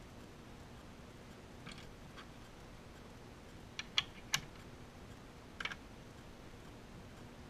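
A handful of short, sharp plastic clicks and taps as a watchmaker's white plastic oil pot and its lid are picked up and lifted off the bench. The loudest pair of clicks comes about four seconds in, with another small cluster near the end.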